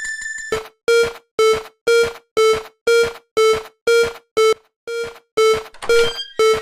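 Japanese railway crossing (fumikiri) warning bell ringing in a steady kan-kan rhythm, about two strikes a second, starting about half a second in.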